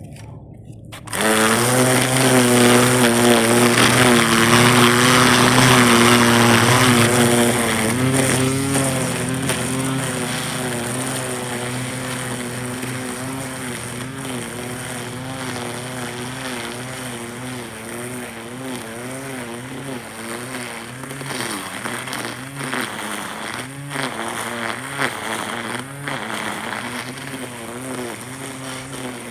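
Gas-powered string trimmer (weed eater) engine coming in suddenly at high revs about a second in, the loudest part with the hiss of the line cutting. It then runs somewhat lower, its pitch wavering up and down as the throttle is worked while trimming.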